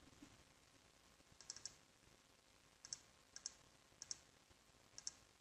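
Faint computer mouse clicks, about five, each a quick press-and-release pair, over near-silent room tone.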